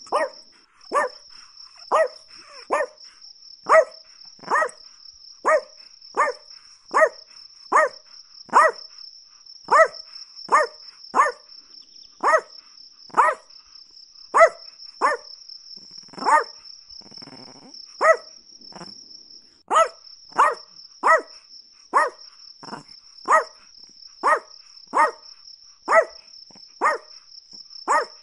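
A chihuahua barking over and over, short sharp yaps at a little more than one a second, with a brief softer, lower stretch about two-thirds of the way through. A steady high-pitched trill runs underneath.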